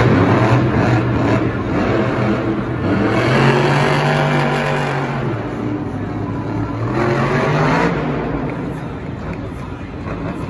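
A vehicle engine revving, its pitch rising and falling in several swells.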